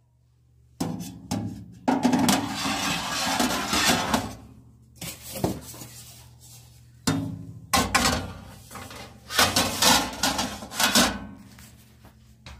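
Rubbing and scraping handling noises with some knocks, as hands handle the mini oven close to the microphone, in two bouts of about four seconds each.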